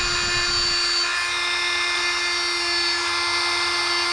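Rockwell oscillating multi-tool running at a steady high whine, its small blade cutting into a pumpkin.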